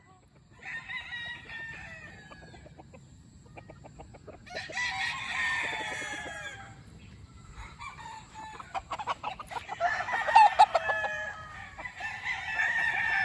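Several gamefowl stags crowing in turn and overlapping, with clucking between the crows. The crows come at about one, five and ten seconds in, and the last is the loudest.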